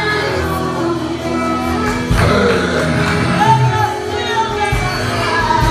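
Live worship music: a keyboard holding sustained chords under voices singing.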